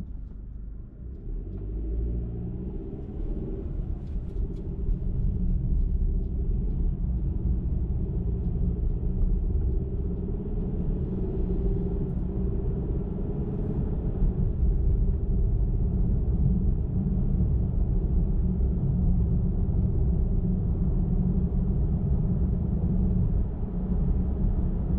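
Car engine and tyre rumble while driving on a highway: a low, steady rumble that builds over the first few seconds and then holds even.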